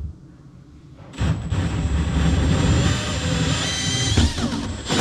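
Cordless drill spinning a hole saw through drywall, starting about a second in and running loud and steady, with a short dip near the end.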